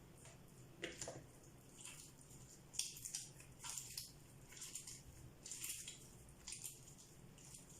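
Hands squeezing and pinching oiled msemmen dough into balls: faint, sticky, wet squelches and smacks at irregular intervals.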